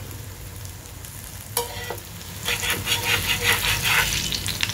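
Millet and sweet potato cutlets sizzling in shallow oil on a tawa. A brief clink comes about a second and a half in. In the second half a spatula scrapes and presses against the pan in a run of quick strokes.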